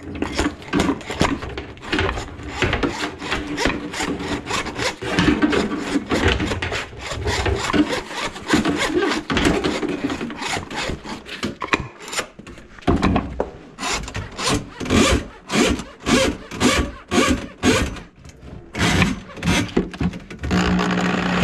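Steel cable of a drum drain auger being worked by hand through the drum opening, scraping in quick repeated strokes while clearing a grease-clogged kitchen drain line. Near the end the auger's motor starts with a steady hum.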